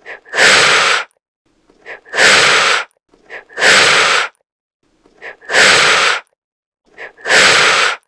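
Iguana blowing forceful breathy blasts, five in a row about every 1.8 seconds. Each is a short faint puff followed by a longer noisy blast lasting under a second.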